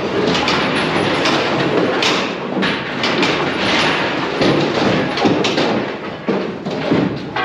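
Steel cattle race and crush rattling and clanking as cattle push through, a continuous metallic clatter with repeated knocks and thuds.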